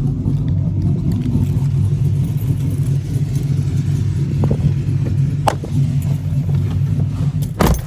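Pickup truck's V8-style exhaust idling with a steady deep rumble through a new Borla ProXS muffler, the engine warm. A click about five and a half seconds in and a louder knock near the end as the driver's door is opened.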